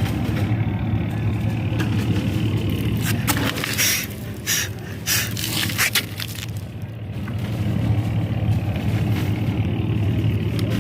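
Arc welding machine humming steadily, with a spell of sharp crackling from the arc between about three and six seconds in.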